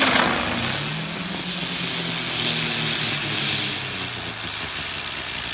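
Ground bloom spinner fireworks burning and spinning on the ground: a loud, steady rushing hiss with a low droning tone that slowly wavers in pitch, easing off near the end.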